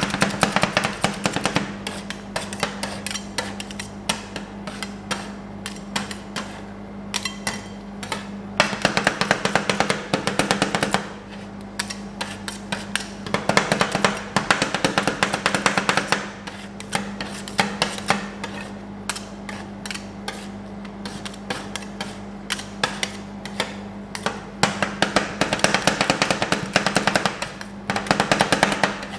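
Two metal spatulas chopping rapidly on a steel ice-cream cold plate, a quick rattle of many strikes a second in bursts with brief pauses, working the mixture as it freezes. A steady low hum runs underneath.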